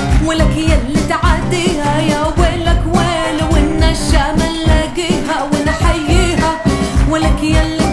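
Live Arabic wedding song: a woman singing into a microphone over a band with a steady beat.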